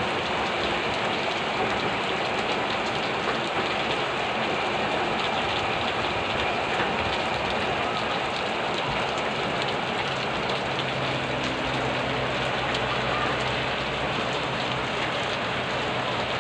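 Heavy rain pouring steadily onto tiled and metal roofs. A low hum comes in about two-thirds of the way through.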